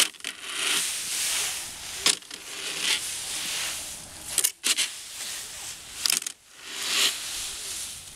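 Plastic leaf rake dragging through dry fallen leaves on a concrete sidewalk: the leaves rustle and crunch in repeated strokes, with a few sharp clicks now and then.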